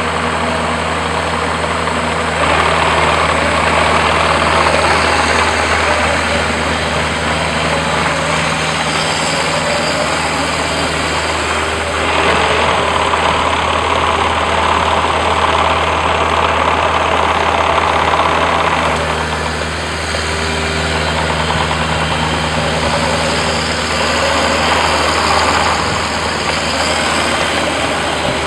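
Bobcat 430 mini excavator's diesel engine running steadily, growing louder and fuller in three long stretches, as when the machine is worked, and easing back between them.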